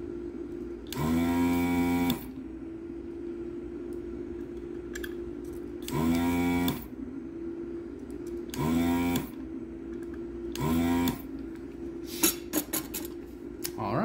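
Handheld desoldering gun's vacuum pump buzzing in four short bursts, each rising in pitch as it spins up, as it sucks molten solder off the RAM chip pins. A steady hum carries on between the bursts, and a quick run of sharp clicks comes near the end.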